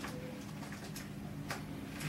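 Budgerigar splashing and fluttering in a shallow plastic dish of bath water: a few short splashy flicks, the sharpest about a second and a half in, over a steady low hum.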